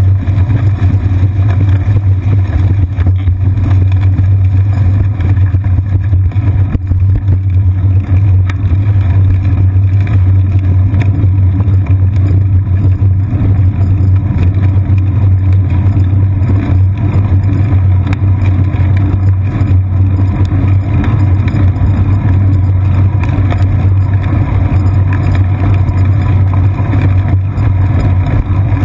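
Steady loud low rumble of a bicycle rolling on asphalt, picked up by a GoPro Hero 2 clamped to the seat post: road vibration through the frame and wind on the camera.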